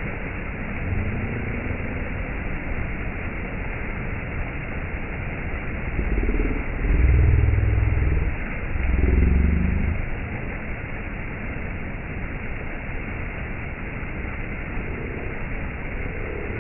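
Steady rushing of stream water. Between about six and ten seconds, a louder low rumble with a wavering pitch swells twice and fades.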